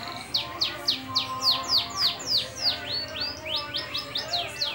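Domestic canary singing a loud, full song: a rapid series of high whistled notes, each sweeping downward, about four a second, broken a little past three seconds in by a quicker run of short rising notes.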